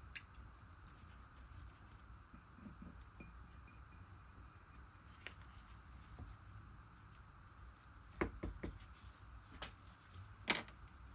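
Faint room tone with a few light clicks and knocks, a cluster about eight seconds in and one sharper, louder click near the end.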